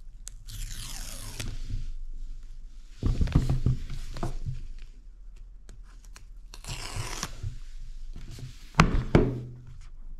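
The paper pull-tab seal strips on an iPhone box being torn off: two ripping tears, with knocks and thumps from the box being handled against the table, the loudest near the end.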